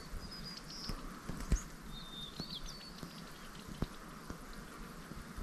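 Faint, short whistled bird chirps, a few at a time, over a soft background hiss, with scattered light clicks and taps.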